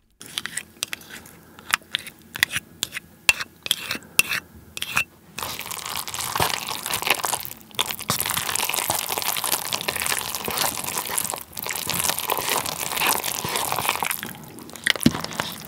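A spoon scrapes and taps as wasabi-mayo sauce is scooped into a paper cup of Jjapaghetti black-bean noodles. About six seconds in, chopsticks start stirring the sticky sauced noodles against the paper cup, a dense continuous crackle that eases off near the end.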